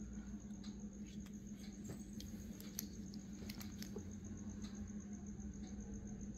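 Faint scattered clicks and light scrapes of a small die-cast toy car being turned over in the fingers, over a steady low hum.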